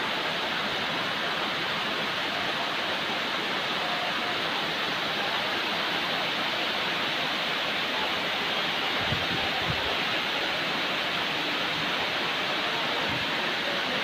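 Heavy rain pouring down on trees and a road, a steady even hiss.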